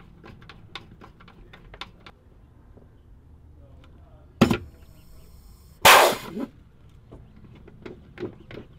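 Rivet nut tool setting riv nuts in an aluminium bracket: quick light clicks as the tool is worked. About four and a half seconds in there is one sharp crack, and at about six seconds a louder, harsher burst lasting about half a second.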